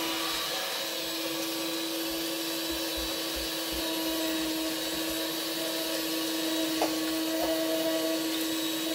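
Electric hand mixer running steadily on a low speed setting, its beaters whisking batter in a plastic jug, with a constant motor hum.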